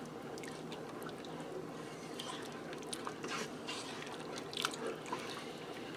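A wooden spoon stirring thin, milky soup in a stainless steel cooker pot: soft liquid swishing with a few light clicks and taps scattered through, over a steady low hum.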